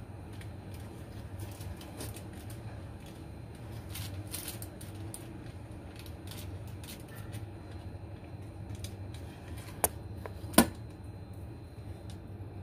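Kitchen knife pressing down through soft potato-cheese dough onto a plastic-covered cutting board, making a run of light clicks and taps as the sheet is cut into sticks. Two sharper knocks come about ten seconds in, over a steady low hum.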